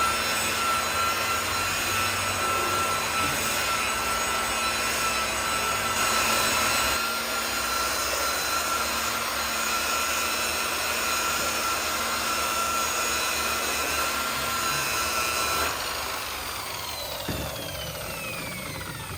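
Electric buffer (polisher) running steadily with a high whine while buffing a painted part, then switched off about 16 seconds in, its pitch falling as the motor winds down.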